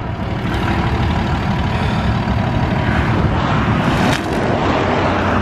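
Diesel engine of a flatbed tow truck running close by, a steady loud rumble.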